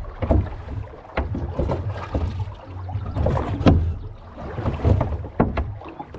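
Rowboat being rowed: the oars knock and clunk in their metal oarlocks several times with each pull, over a low rumble of water against the hull.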